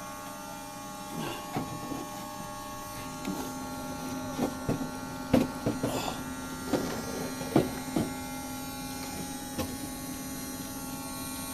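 Handling noises: a series of knocks and bumps as a radio-controlled model airplane is rolled over on a towel-covered bench and the camera is set down beside it. Under them runs a steady electrical hum, with a low buzz that comes in about three seconds in.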